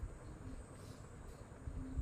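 Faint low knocks and taps from hands and a tool working on a car horn while its screws are tightened, the strongest near the end, over a steady faint high-pitched tone.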